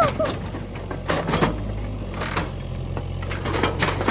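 Mini excavator's engine running steadily, with several sharp knocks as the machine works over the scrap.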